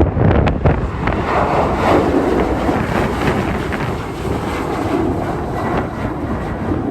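Strong wind buffeting the microphone in gusts, over the steady roar of a jet airliner's engines.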